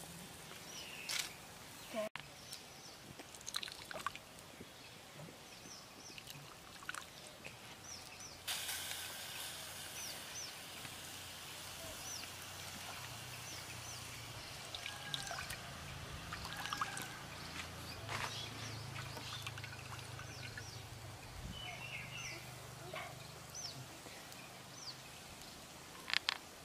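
Water sloshing and trickling in a metal bowl as hands wash and squeeze a soaked, shredded ingredient, with a louder splash near the end.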